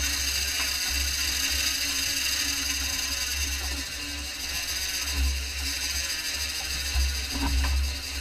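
A big-game fishing reel's drag screaming as a hooked bluefin tuna strips line off, a steady high-pitched whir. Wind rumbles on the microphone, in gusts about five and seven seconds in.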